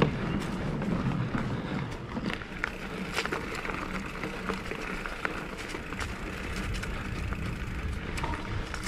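Mountain bike rolling over a rough trail: steady tyre and drivetrain noise with scattered clicks and rattles.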